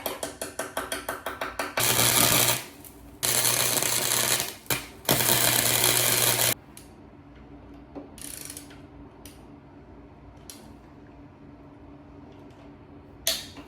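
Electric welder's arc crackling as a nut is welded onto a stripped bolt: a quick run of short stuttering tacks, then three longer welds of about a second each with a low hum under them, after which only faint scattered ticks remain.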